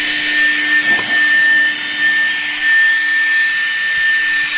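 Electric power tool motor running at a steady speed: one high whine over a hiss, with no change in pitch.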